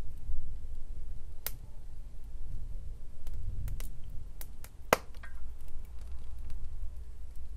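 Open fire burning in a grate, crackling with a handful of sharp, irregular pops over a low steady rumble. The loudest pop comes about five seconds in.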